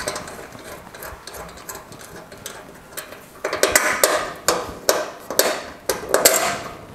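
Metal clicking and clinking as a spanner works a bolt loose from a steel bracket bolted across a truck door gap. The clicks come irregularly and grow louder about halfway through.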